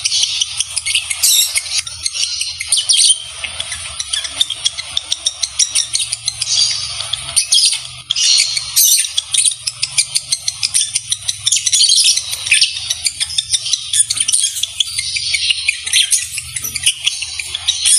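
Fischer's lovebirds chattering while mating: a rapid, unbroken run of high twitters and clicks.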